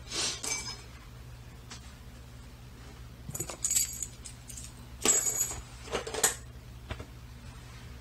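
Keys jangling and small metal clinks as a brass mortise lock cylinder and its key ring are picked up, in several short bursts with bright metallic ringing.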